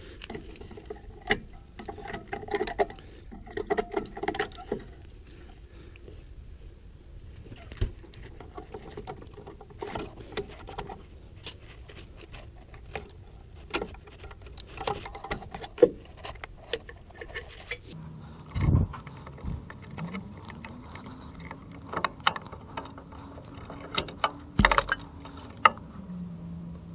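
Irregular clicks, clinks and knocks of hand tools and parts on the rear axle and drum-brake assembly of a Chevrolet C1500 pickup as the brake assembly is taken apart, with a few heavier knocks in the second half. In the last third a low hum comes in, rises in pitch, holds, and drops again near the end.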